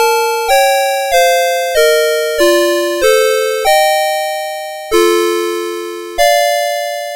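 CITIZEN Melody Box 30 series alarm clock playing one of its electronic alarm melodies: bright, chime-like two-note chords, each struck and then fading. The tune moves in short notes a little under two a second, then slows to three longer held notes.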